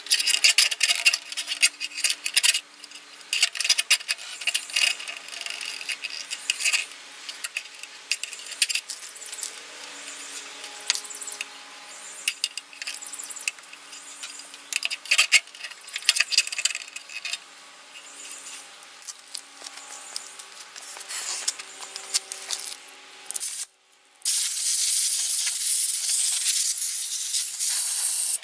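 Clicks and clatter of hands working plastic and metal parts on a small lawn mower engine. About 24 seconds in, a loud, steady hiss of compressed air from a blow gun starts up, blowing dirt and water out of the engine.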